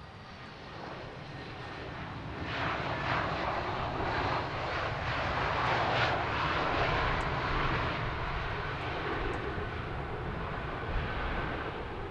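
Jet airliner's engines passing by: a rushing noise that builds over the first few seconds, is loudest around the middle and slowly eases off, with a faint steady whine over it.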